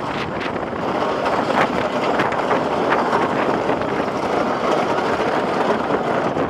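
Ride-through sound of the GhostRider wooden roller coaster: the train running along the track with a steady rushing roar of wind and wheel rumble, broken by rattling clicks.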